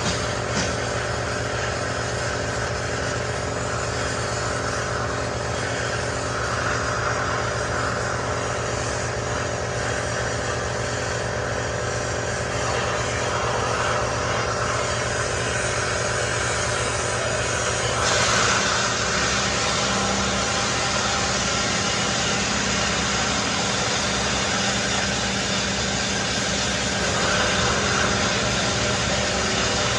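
Oxy-fuel torch hissing steadily as its flame heats the steel ABS tone ring on a truck brake rotor hub, over a steady mechanical hum. The hiss grows brighter about two-thirds of the way through.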